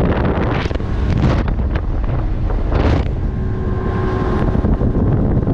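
Heavy wind buffeting the microphone on a bass boat running at speed, over the low, steady drone of the outboard motor, with a few louder rushes of wind about half a second, three seconds and four seconds in.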